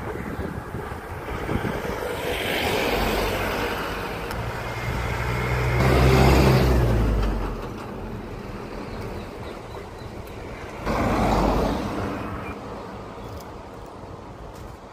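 Motor vehicles passing on a nearby road. One swells in and fades away with a low engine hum, loudest about six seconds in, and another passes about eleven seconds in.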